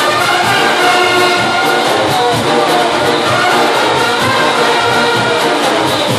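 Loud live band music: brass horns playing a tune over a steady percussion beat.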